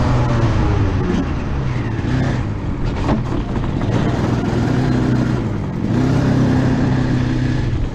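Rotax two-stroke kart engine running at low revs as the kart rolls slowly off the track, its pitch holding fairly steady with small dips and a slight rise in level near the end.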